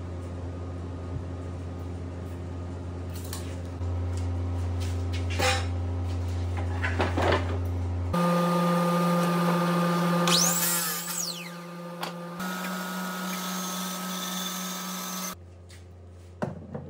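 Workshop power tools running steadily in a string of short edited clips. First there is a low motor hum, then a higher-pitched saw motor whose whine briefly rises and falls as scrap 2x4 lumber is cut. A few knocks of wood come near the end.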